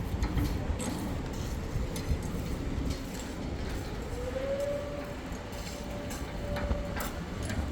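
Construction-site noise: a steady low rumble with scattered clinks and knocks. About four seconds in, a steady whine rises slightly in pitch and then holds.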